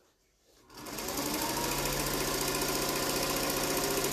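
Electric sewing machine starting about a second in, its motor rising to speed, then stitching at a steady, even rate.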